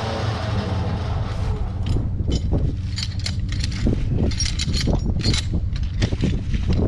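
An engine runs steadily underneath. From about a second and a half in, it is joined by a fast, irregular series of metallic clanks and rattles, typical of chains and hitch hardware on a towed log arch.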